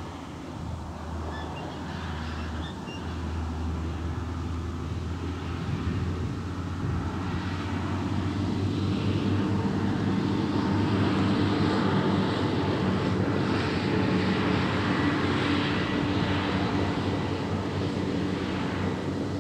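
A steady engine drone that grows louder over several seconds, peaks past the middle and eases a little near the end, like a motor passing at a distance.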